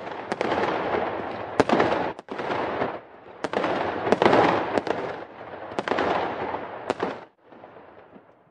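Fireworks going off: repeated sharp bangs, each followed by about a second of crackling, fading to a fainter crackle near the end.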